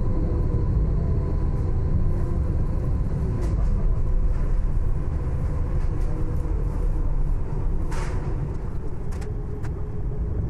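Interior of a moving tram: a steady low rumble of the car running on its rails, with a faint steady whine and a few short clicks and rattles, the sharpest about eight seconds in.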